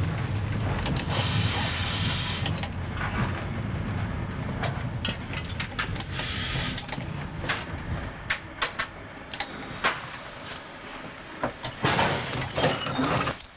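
DR class 772 'Ferkeltaxe' railbus running on a branch line, heard from the cab: a low diesel and running-gear rumble with sharp clicks from the wheels and rails, and two short spells of hiss. The rumble dies away in the second half, and a loud harsh rush comes near the end.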